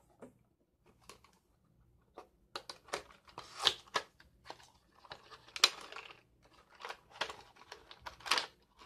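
Small paperboard product box handled and opened by hand: its flaps and contents rustle, crackle and click in irregular bursts, sparse at first and busier from about two and a half seconds in.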